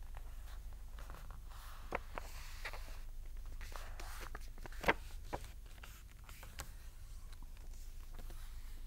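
Sheets of paper being folded and creased by hand on a tabletop: soft rustling and sliding with scattered light crinkles and taps, the sharpest about five seconds in, over a low steady hum.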